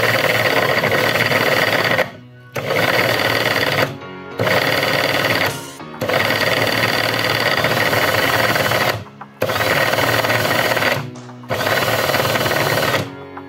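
A handheld power tool spinning a 3D-printed Roots-type supercharger in six loud runs of one to three seconds each, with short pauses between. The blower is building static pressure as it spins.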